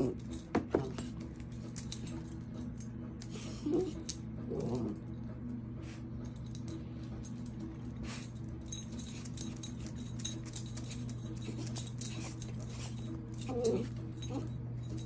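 A puppy's collar tags jingling in rapid, irregular clinks as it bounces up and down on its hind legs, with a few short puppy cries, over a steady low hum.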